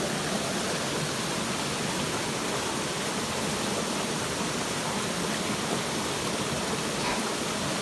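Mountain stream water rushing steadily: an even, unbroken hiss of flowing water.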